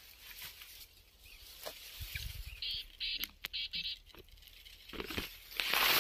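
Dry grass stalks rustling and brushing against the microphone as it is pushed through the grass, loudest near the end. Before that, scattered handling clicks and three short high chirps about halfway through.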